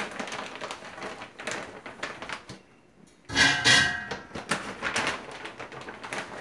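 Plastic bag crinkling as a hand takes popcorn chicken out of it, then a loud clatter with a short ringing about halfway through as the pieces drop into the air fryer's basket.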